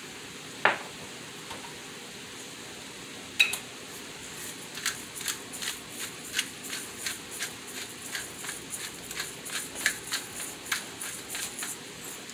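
Two sharp clicks, then a pepper grinder being turned over the pan: a run of quick grinding clicks, about three a second.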